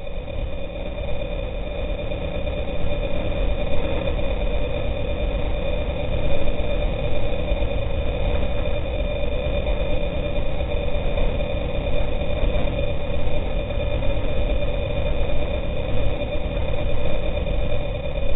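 36 HP Prodrive surface-drive mud motor running steadily as it pushes an aluminium boat over open water, heard in slow-motion playback. A constant drone carries two steady high whines over a low rumble.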